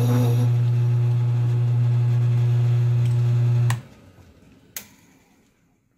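Early-1950s Sheldon lathe running with a steady electric-motor hum; a higher whine drops away about half a second in. A little past halfway the motor is switched off with a click and the hum cuts out as the spindle winds down, and a second sharp click follows about a second later.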